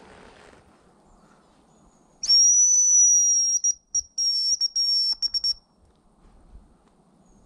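Hazel grouse decoy whistle blown close by, imitating a hen hazel grouse's call to lure the birds: one long thin high whistle about two seconds in, then a run of short broken notes that stops near the end.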